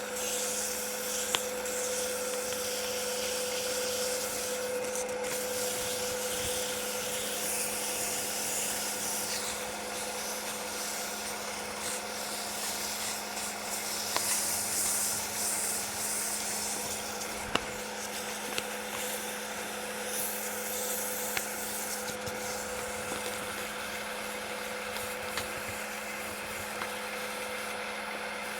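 500-grit sandpaper rubbing against a cherry muddler blank on a wood lathe, a steady scratchy hiss that swells and eases with the hand strokes, over a constant motor hum.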